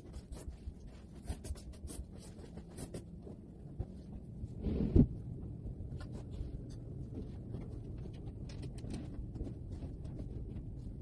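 Bedding being handled as a sheet is spread and tucked onto a child's bed: fabric rustling and scraping with many small clicks and taps, and one louder thump about five seconds in.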